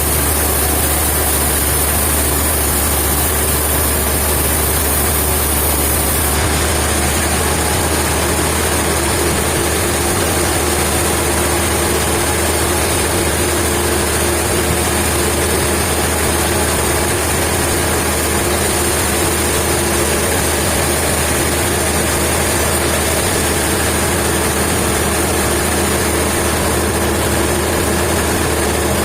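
A heavy engine running steadily at a constant speed, with a high hiss over it that drops away about six seconds in.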